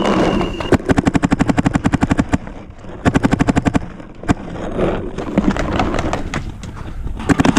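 Paintball marker firing in rapid bursts of about a dozen shots a second: a long burst about a second in, a shorter one around three seconds, another near the end, with looser scattered shots between.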